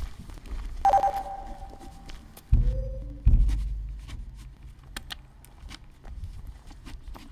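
Experimental electroacoustic sound collage. About a second in, a short ringing tone fades away. Two heavy low thuds follow, with a low rumble after them, and sparse clicks run throughout.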